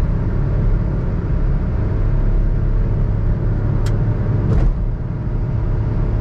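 Suzuki Alto 660cc three-cylinder engine droning steadily under throttle in fifth gear at highway speed, about 110 to 120 km/h, heard inside the cabin over road and tyre noise; the owner puts the loud engine noise down to poor engine-bay insulation with gaps at the sides. Two brief clicks about four seconds in.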